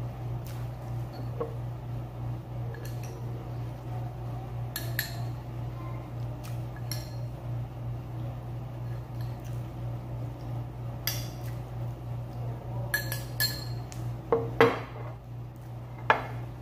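Metal spoon clinking and scraping against white ceramic bowls and a plate during a meal, in scattered single clinks, the loudest few about fourteen to sixteen seconds in. A steady low hum runs underneath.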